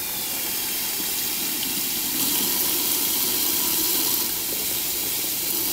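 Kitchen tap running steadily into a plastic measuring cup, the water spilling over into a stainless steel sink.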